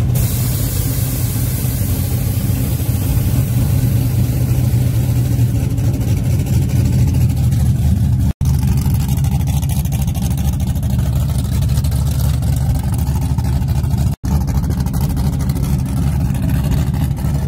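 Engines and exhausts of lowered Chevrolet pickup trucks rumbling as they cruise slowly past. The sound cuts out for an instant twice, about a third and three-quarters of the way through.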